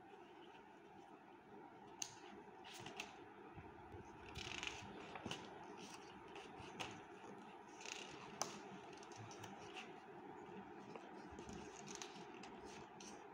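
Pages of a hardcover picture book being turned by hand: faint paper rustles and small crisp taps every second or two, over a faint steady hum.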